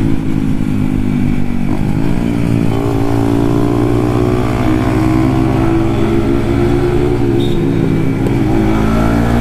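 Two Yamaha MT-15 motorcycles' 155 cc single-cylinder engines running together at steady riding revs, with a brief change in engine pitch about two seconds in.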